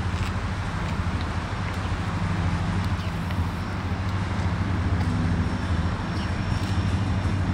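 EMD GP40-2 diesel locomotive's 16-cylinder 645 engine running with a steady low drone as the unit rolls slowly.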